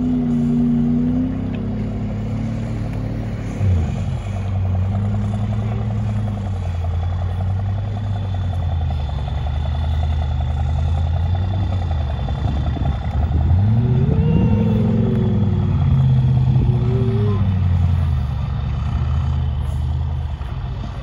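MAN TGS 8x8 trial truck's diesel engine working under load on a steep dirt climb, its revs dropping and rising; about two thirds of the way through the revs climb sharply and hold, then fall away near the end.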